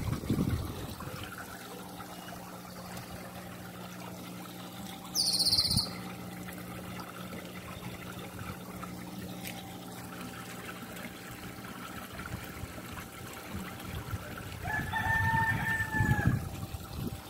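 A bird calls once near the end, holding one pitch for about a second and a half, over a steady trickle of pond water. A short, high, loud chirp comes about five seconds in.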